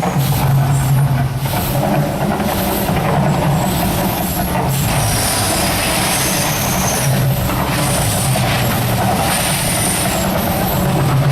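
The Mirage volcano show in full eruption: a loud, steady rumbling roar with a rushing hiss over it, from the show's flame jets, fountains and booming soundtrack.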